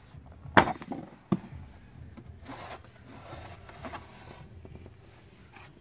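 Plastic kick panel being pulled off the footwell of a 2002 GMC Yukon: a sharp snap about half a second in and a smaller one just after a second as its retaining clips pop free, then light plastic scraping and rubbing.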